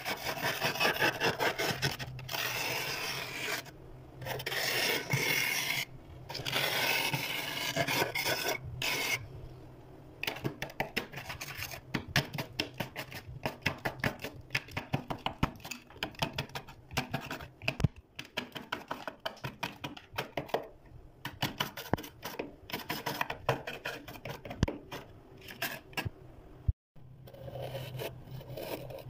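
Thick freezer frost being scraped off with a plastic scraper: crunchy, rasping scrapes, first a few long strokes of a second or two each, then many quick short strokes.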